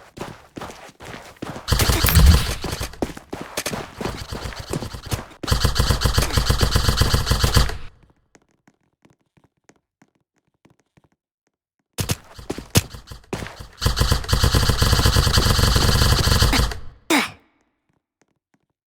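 Airsoft gun firing long full-auto bursts, a rapid run of shots over several seconds. It stops for a few seconds, then fires another long burst that cuts off sharply near the end.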